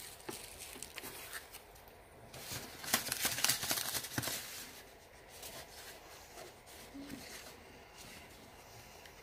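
Packaging being handled and unpacked: rustling and crinkling with light clicks, busiest a few seconds in.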